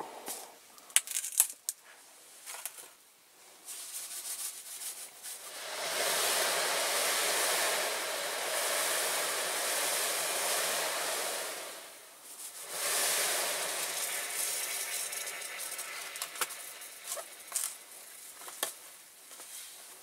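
Caustic soda granules poured from a plastic bottle into a tub of boiling water, making a steady hiss for about six seconds, a brief stop, then a second, shorter hissing pour. Light clicks and knocks of the bottle being handled come before and after.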